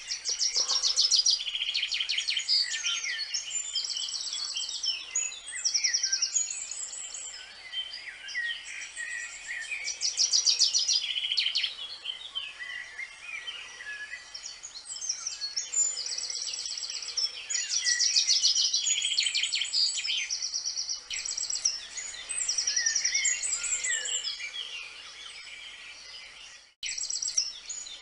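Several songbirds singing together in a dense chorus of high chirps, trills and rapid repeated notes, swelling and easing every few seconds; the sound cuts out briefly about a second before the end.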